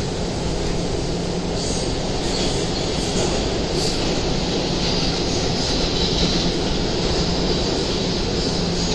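Inside an R211A New York City subway car running on the A express line: a steady rumble of wheels on track with a constant low hum.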